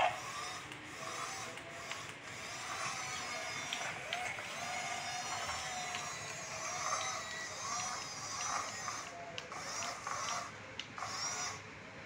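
Small electric gear motors of a toy RC excavator whirring as it drives on its plastic tracks and moves its boom. The whine rises and falls in repeated short swells.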